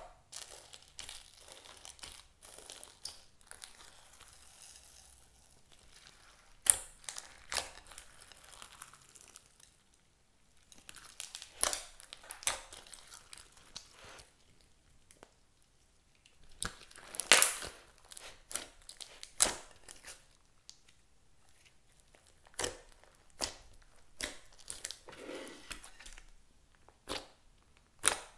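Hands squeezing, folding and poking thick slime mixed with beads and glitter, making irregular sticky crackles and clicks. Every few seconds there is a sharper pop.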